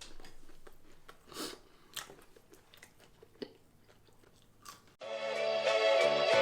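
Close-up chewing and biting of a fried chicken tender, with scattered crisp crunches and mouth clicks. About five seconds in, music starts abruptly.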